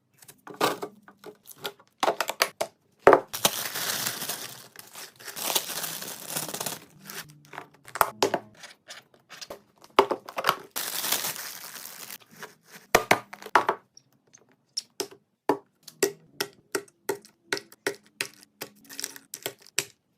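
Plastic packaging and containers handled while a refrigerator is being organised: many light clicks and taps of items set down, with two longer stretches of plastic crinkling and tearing, about three seconds in and again about ten seconds in.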